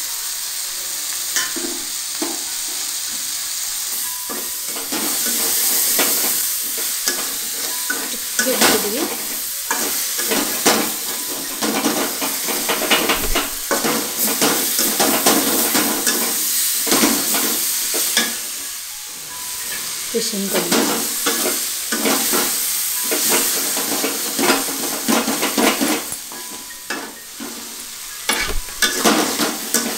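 Chopped onion, capsicum and tomato sizzling as they stir-fry in an aluminium kadhai, with a spatula repeatedly scraping and knocking against the pan as the vegetables are turned.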